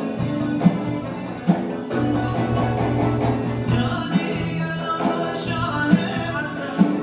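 Turkish ilahi (religious hymn) played by violin and kanun with a sharp beat struck a little under once a second; a male chorus's singing comes in around the middle.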